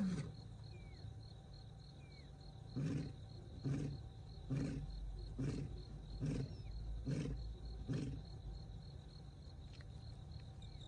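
Male lion finishing a roaring bout with a series of about seven short grunts, roughly one a second, that fade near the end. This is a long-distance contact roar to a missing companion. Insects trill steadily in the background.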